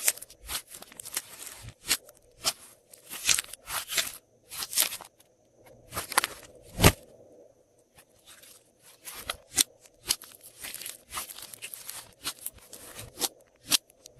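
Glossy slime being squished and mixed by hand, giving irregular crisp pops and crackles. One loud snap comes about seven seconds in, followed by a short lull.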